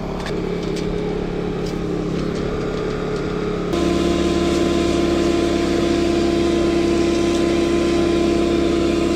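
Sewer vacuum truck running steadily with a droning hum while rocks are pulled from the sewer pipe; about four seconds in it jumps abruptly to a louder, steadier drone with a higher whine.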